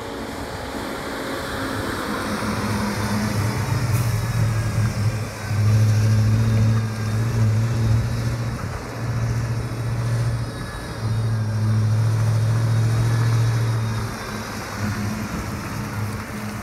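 ZIL-131 army truck's V8 petrol engine running as the truck drives past and turns, its note swelling and easing back several times with the throttle.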